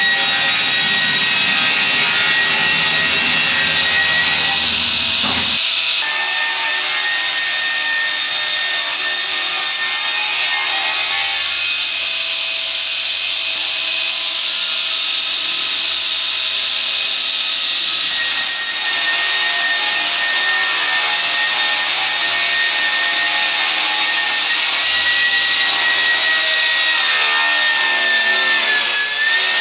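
Log sawmills cutting through timber. About five seconds in the sound changes abruptly to a horizontal circular-blade sawmill, driven by an electric motor, sawing lengthwise along a log: a steady high whine over the noise of the cut.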